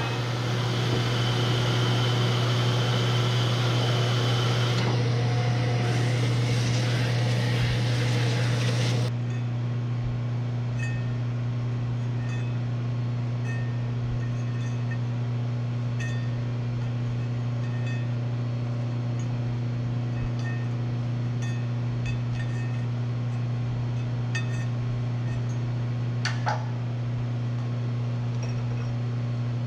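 Steady electric motor hum from the Bridgeport milling machine's drive and its rotary phase converter. A louder, noisier machining sound lies over it for about the first nine seconds and then stops suddenly. After that only the hum continues, with faint clinks and one sharp click near the end.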